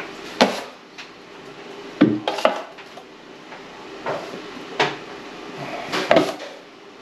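Drywall knife scraping and clacking against a mud pan and over the ceiling as joint compound is loaded and spread, with several sharp clacks spaced a second or two apart.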